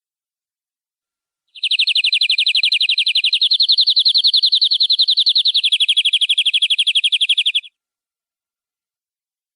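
Domestic canary singing one long rapid trill of quick repeated high notes, about six seconds long. The trill starts about a second and a half in, steps slightly higher partway through, drops back down near the end and cuts off suddenly.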